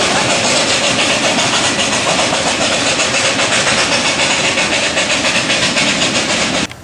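Miniature park railway train running on its narrow-gauge track: a loud, steady rolling noise with a fast, even rhythm, which cuts off suddenly near the end.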